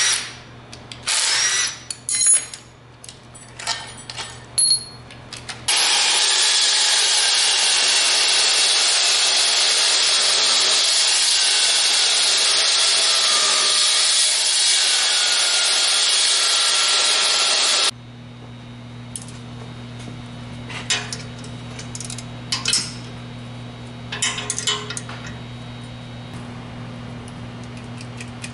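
An angle grinder cuts metal in one long, loud, steady run of about twelve seconds that stops abruptly, while the steel booster mounting bracket is cut apart to be modified. Before it come a few short bursts from a cordless power driver; after it, scattered clinks and taps of hand tools over a low hum.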